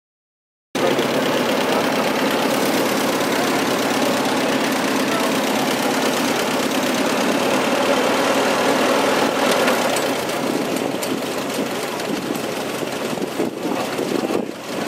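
An Allis-Chalmers farm tractor's engine idling steadily, cutting in abruptly under a second in after silence.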